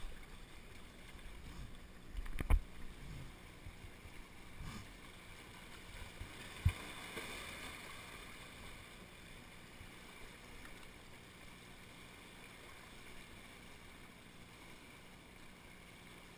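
Small sea waves washing and swirling over shoreline rocks, a steady wash of water that swells for a moment about seven seconds in. Two dull thumps stand out, one about two and a half seconds in and one about six and a half.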